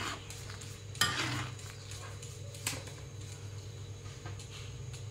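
Metal spatula clanking against a steel wok while stirring a simmering gravy: two sharp clanks that ring briefly, about a second in and again near the middle, with lighter scraping between, over a steady low hum.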